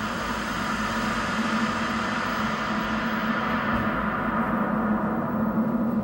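Company logo sound on a VHS tape played back in EP mode: a sustained, gong-like ringing tone that slowly swells in loudness, over a steady hum and tape hiss.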